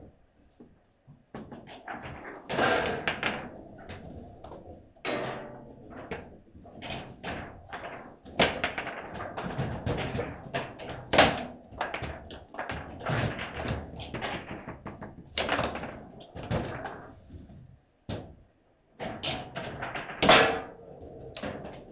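Table football in play: a fast, irregular run of sharp clacks and thunks as the ball is struck by the players on the rods and bounces off the table, with the hardest hits about 11 and 20 seconds in.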